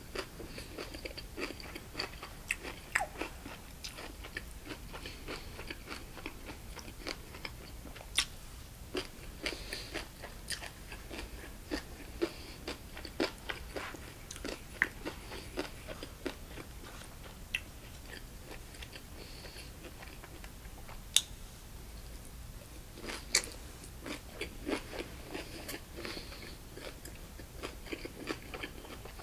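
Close-miked crunchy chewing and biting of bossam pork with kimchi and fresh vegetables, an irregular run of wet crackles and sharp clicks that thins out for a few seconds past the middle.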